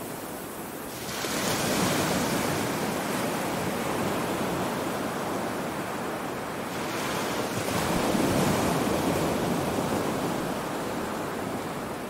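Ocean surf on a sandy beach: waves break and wash up the shore, one about a second in and another around seven seconds in, each a swell of hiss that slowly dies away.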